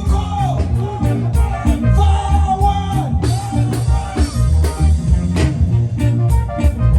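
Reggae music with a steady drum beat, heavy bass and a singing voice.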